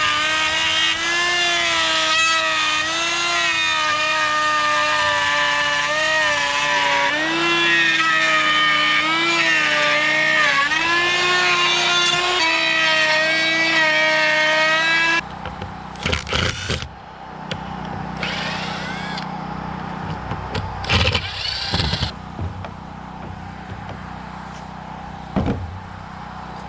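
DeWalt electric router running and cutting into a timber post: a loud, steady motor whine whose pitch dips and recovers as it bogs under load, then cuts off suddenly about halfway through. Afterwards, scattered knocks and clatter of handling.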